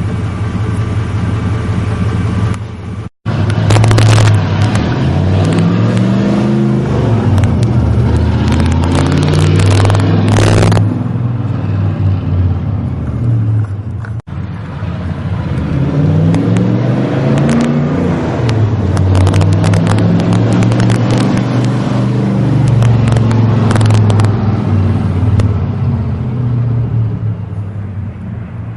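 1991 Chevrolet 1500 pickup's engine, said to make about 425 horsepower, idling and then revved repeatedly while standing, its pitch climbing and falling again and again in two long runs of revs with idle in between.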